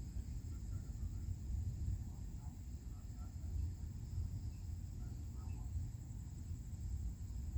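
Outdoor ambience: insects trilling steadily in a high pitch over a low, steady rumble.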